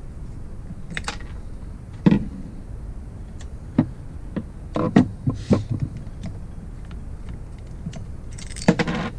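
Metal engine parts and hand tools clinking and knocking as a Falcon 911 motorized-bike engine is taken apart: scattered sharp taps, with a quick run of clinks about five seconds in and another near the end.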